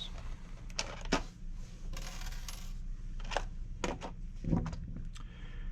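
A handful of sharp metallic clicks and clinks: the body clips of a Latrax Teton RC truck being pulled off its body posts. There is a brief rustle about two seconds in.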